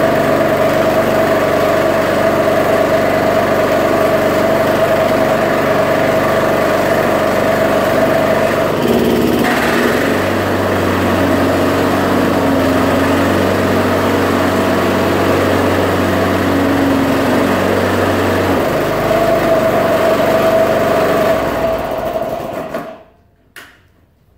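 Walk-behind gas lawnmower's small engine running steadily on its first start of the season; its tone shifts slightly about nine seconds in. The engine shuts off about 22 seconds in and winds down over about a second.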